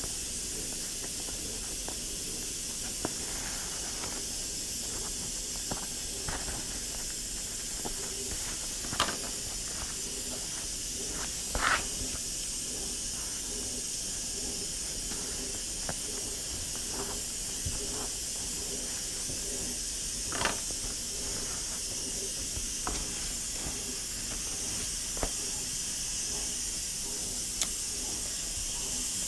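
Pressure cooker venting steam in a steady hiss, with scattered short clicks and rustles from a plastic citrus peeler working through orange peel and being handled; the loudest clicks come about 12 and 20 seconds in.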